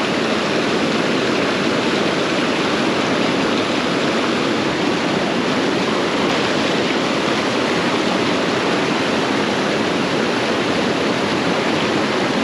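Small creek's water rushing steadily and loudly, an even unbroken rush with no change in level.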